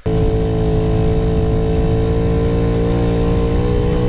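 Puch Maxi moped's 50cc two-stroke single-cylinder engine running steadily under way, its pitch rising slightly about three and a half seconds in.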